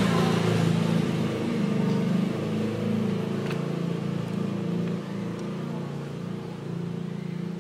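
A steady low engine drone, easing slightly in level, with a couple of faint ticks.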